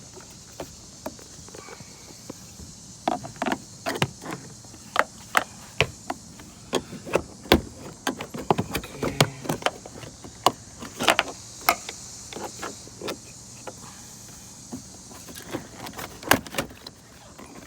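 Irregular sharp clicks and knocks of plastic trim as a 2010 Ford Fusion's inside door panel is worked loose, its push-in clips being pried free.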